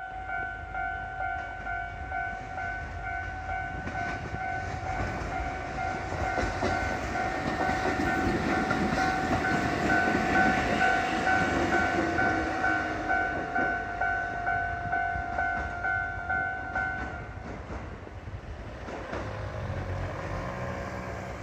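Level-crossing warning bell ringing in a steady pulsing beat while a Kotoden ex-Keikyu 1000 series electric train passes over the crossing, its wheels rumbling and clacking on the rails. The train is loudest about halfway through, and the bell stops about 17 seconds in.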